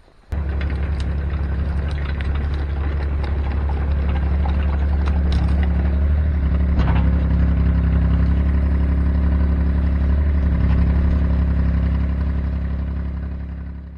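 Cat mini excavator's diesel engine running steadily, with scattered clanks and rattles. It starts abruptly and fades out near the end.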